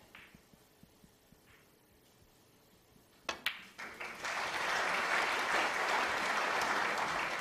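A sharp click of snooker balls about three seconds in, then the arena audience applauding, swelling quickly and holding steady.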